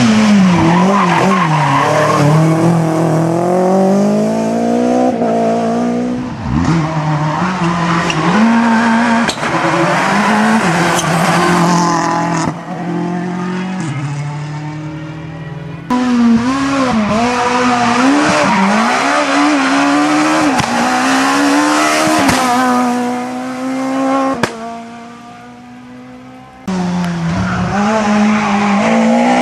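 Rally cars driven hard through tight bends, engines at high revs with the pitch climbing and dropping over and over on throttle and gear changes. Several passes are cut together with abrupt jumps, and there is a quieter lull near the end before the next car comes through loudly.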